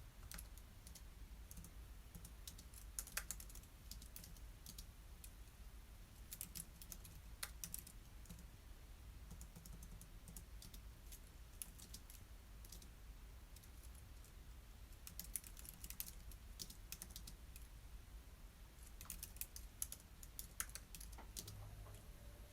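Quiet typing on a computer keyboard: short bursts of keystrokes with pauses between them, over a faint low steady hum.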